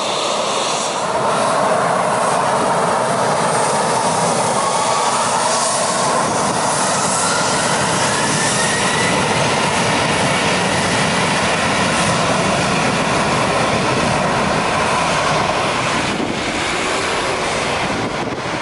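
Embraer E-Jet's twin turbofan engines at high power for takeoff: a loud, steady jet noise with a whine rising in pitch as the engines spool up, easing slightly near the end as the aircraft moves away.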